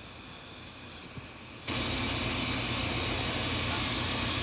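Salmon cake frying in butter in a pan: a steady sizzle with a low hum under it, cutting in abruptly about two seconds in after a quiet stretch.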